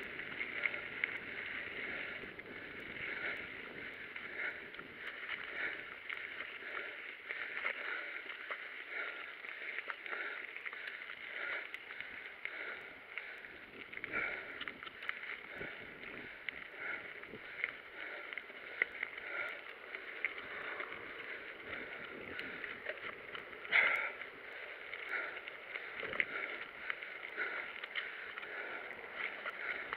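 Mountain bike rolling over a gravel and dirt trail: a continuous crunch of the tyres on loose stones with frequent small rattles and knocks as the bike goes over bumps, and one louder knock late on.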